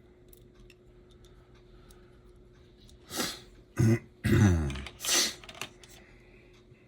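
A man clearing his throat and coughing, a cluster of harsh throat sounds about three seconds in, one with a falling pitch, after a few seconds of faint small clicks.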